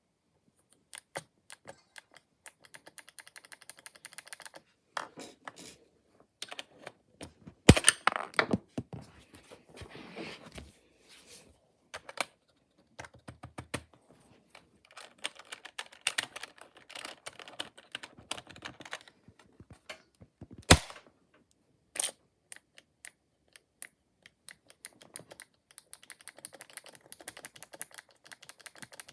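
Membrane computer keyboard being typed on, with runs of rapid clicky keystrokes, short pauses and a few loud single clacks about 8, 21 and 22 seconds in.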